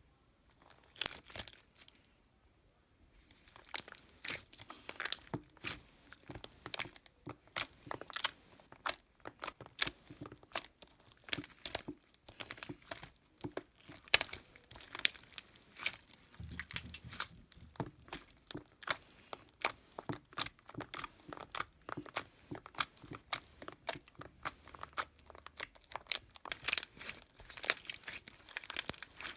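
Slime with small plastic pieces mixed in being squeezed and pressed by hand: a dense run of crunchy clicks and crackles. A short burst comes about a second in, and the crackling runs on steadily from about three and a half seconds.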